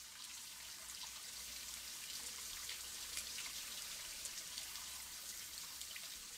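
Faint trickling and dripping water, a steady hiss with many small scattered drips, as of water seeping through a timber dam's flume gate.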